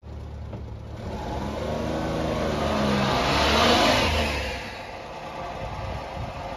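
A small kei truck's three-cylinder engine pulling up close by, the engine note and tyre noise building to a peak about four seconds in, then dropping back as it slows to a low steady run.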